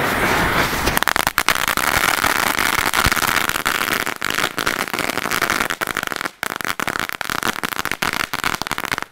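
Several fountain-and-mine pyrotechnic items lit all at once and burning together as one big fire: a loud, dense hiss of spraying sparks with rapid crackling pops. From about six seconds in the hiss thins and scattered crackles go on.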